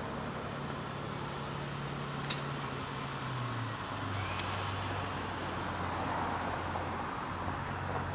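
A car engine idling steadily over a steady outdoor hiss of traffic and wind. The idle drops to a lower pitch about three and a half seconds in.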